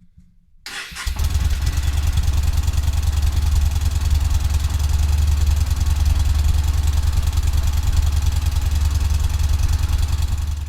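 Yamaha XV 950 Bolt's air-cooled V-twin engine idling with a steady low rumble, starting about a second in and cutting off suddenly near the end.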